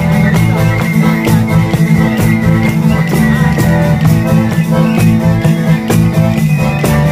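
Live band music with a steady hand-drum beat under guitar and sustained pitched notes.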